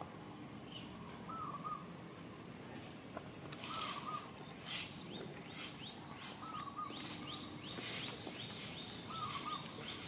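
Outdoor ambience: a bird's short warbled call repeats about every two and a half seconds. From about a third of the way in, high rasping pulses come about twice a second.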